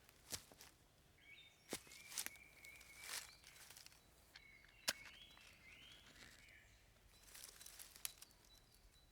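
A few scattered light knocks and snaps, as of wood or stones being handled, the sharpest about five seconds in. A few short, faint bird chirps fall between them.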